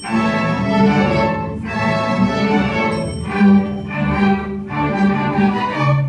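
A school string orchestra of violins, cellos and double basses playing a piece that starts abruptly at the opening and breaks off just before the end.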